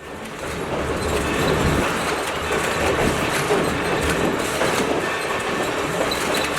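Passenger train running along the track: a steady rumble of wheels on rail that fades in over the first second.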